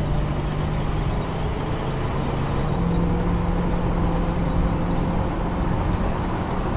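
Car engine running steadily at cruising speed with tyre and road noise, heard from inside the cabin. A faint high whine joins about three seconds in.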